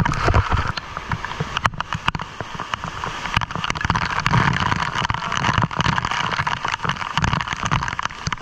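Waterfall's rushing water, a steady loud rush with low rumble, broken by many short knocks and clicks close to the microphone.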